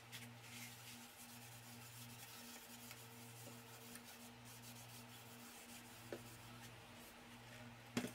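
Faint rubbing of a hand spreading oil finish over a wooden shelf board, over a low steady hum. A sharp knock near the end.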